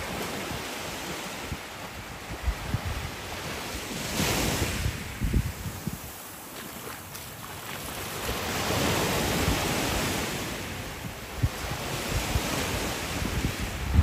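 Small waves lapping and washing up a sandy shore, the wash swelling about four seconds in and again near the middle. Wind rumbles on the microphone.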